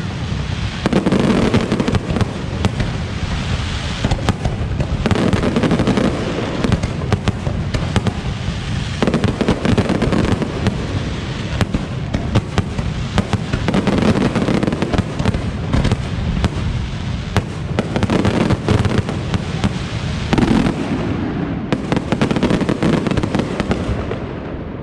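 Aerial fireworks display: a dense, continuous barrage of shell bursts and crackling bangs over a heavy low rumble, swelling and easing in waves every few seconds.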